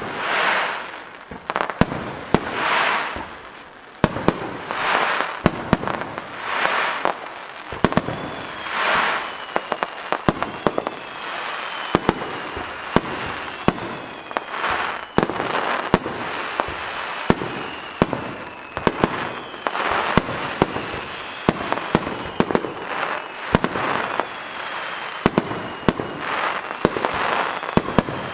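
A starmine fireworks barrage: many sharp bangs of launches and bursting shells in quick succession, with swells of hiss about every two seconds.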